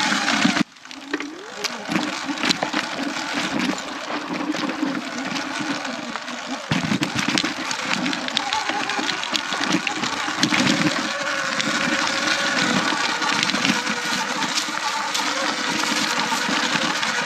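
Sur Ron X electric dirt bike ridden over a rough trail: a steady electric motor whine with constant rattles and knocks from the bike bouncing over the ground. The sound drops out abruptly about half a second in, then picks straight back up.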